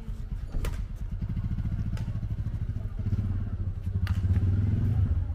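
A small engine running with a fast, even low putter that gets louder from about three seconds in, with a few sharp clicks over it.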